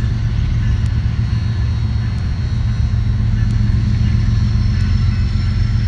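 Diesel locomotives of a loaded grain train working under power as the train starts off from a stop: a steady low engine rumble.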